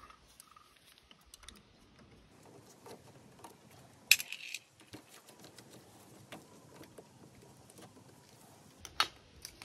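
Light metallic ticks and clicks of a Torx screwdriver turning out and lifting the loosened screws from the lid of a diesel fuel filter housing. Two sharper clicks stand out, one about four seconds in and one about nine seconds in.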